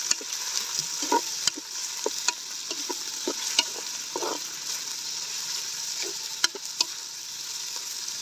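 Pieces of meat sizzling in a large black wok, stirred with a ladle that scrapes and knocks against the pan every second or so, with a steady frying hiss underneath.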